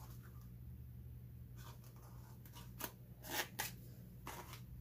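Hands rubbing and pressing on a duct tape sheath fitted over an axe blade: several short, faint scuffs and crinkles over a low steady hum.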